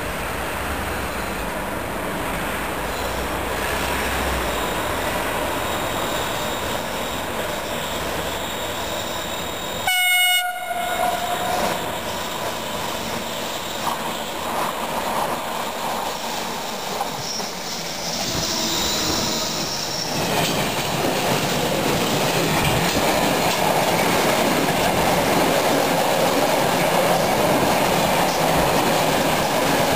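Electric freight train: a short horn blast about ten seconds in, then the locomotive and a long rake of empty stake flat wagons rolling past close by. The noise grows louder near the end, with wheels clattering over the rail joints and some wheel squeal.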